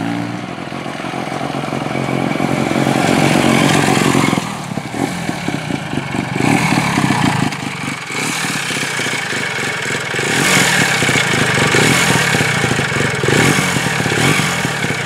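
Air-cooled single-rotor Wankel engine of a Hercules motorcycle running. For the first four seconds or so it runs steadily and grows louder. After that it idles with an uneven pulsing beat and is revved up several times.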